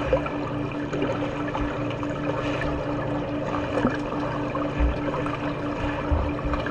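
Pool water churning and splashing, with scattered low thumps and a steady low hum pulsing about four times a second.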